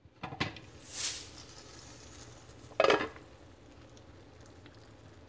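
Slow cooker's glass lid being handled on the crock: light clinks near the start, a brief hiss about a second in, and a sharp clunk about three seconds in, the loudest sound, then a faint steady background.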